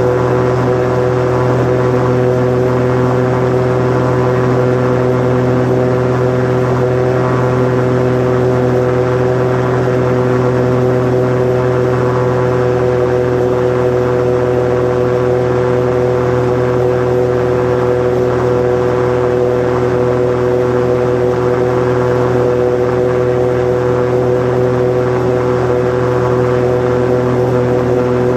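Osprey 2 amphibious seaplane's piston engine and propeller running at steady high power, heard from inside the cockpit, during the takeoff run off the water and the climb-out. A constant drone that holds its pitch throughout.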